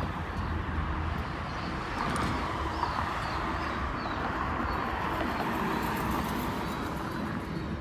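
Steady rumble of a freight train passing behind a pair of GE diesel locomotives, mixed with road traffic going by on the bridge. A few faint bird chirps come through in the first half.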